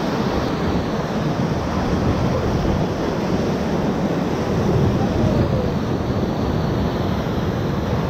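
Whitewater rapids rushing and splashing loudly and steadily around an inflatable raft, with wind noise on the microphone.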